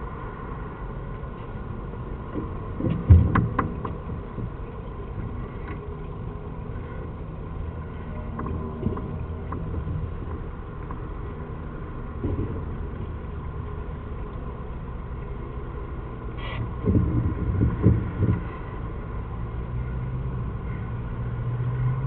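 Steady low rumble and hum with a few dull knocks and thumps, two close together about three seconds in and a cluster of several around seventeen to eighteen seconds.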